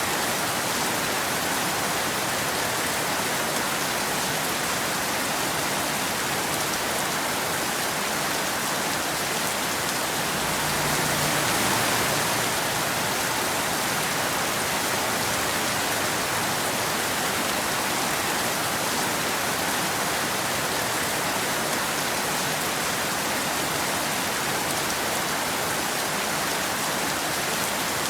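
Steady rain falling, an even hiss with no thunder, swelling slightly about eleven seconds in.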